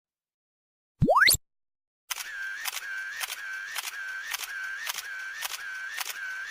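Edited-in comic sound effects: a quick upward pitch sweep about a second in. About a second later comes a steady string of identical click-and-tone blips, about two a second.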